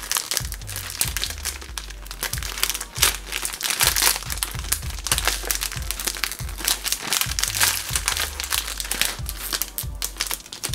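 A foil-lined snack pouch crinkling as it is handled and torn open, over background music with a repeating bass line.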